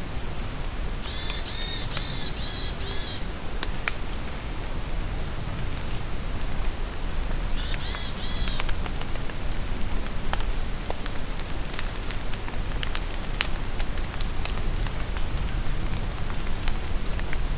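Steady rain falling on a forest, with scattered drips and drops. A songbird sings a quick run of repeated high, arched notes about a second in, and a shorter run again around eight seconds in.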